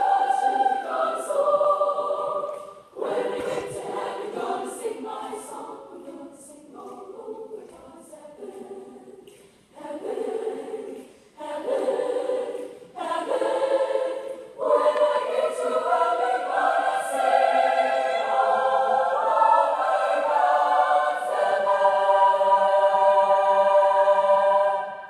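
Women's choir singing a spiritual in close harmony: short, separated chords with brief gaps, then a long held final chord that swells and is cut off together near the end.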